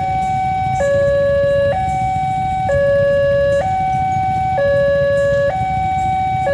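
Electronic railway level-crossing alarm sounding a two-tone hi-lo warning, a higher tone and a lower tone alternating, each held just under a second. A low rumble of waiting motorcycle engines sits underneath.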